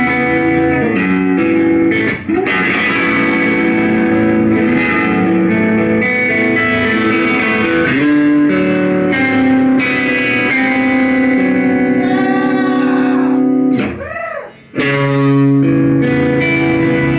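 Math rock band playing live, with electric guitar, bass and drums on an instrumental passage of layered, ringing guitar lines. The band cuts out almost completely for under a second about fourteen seconds in, then comes back in together.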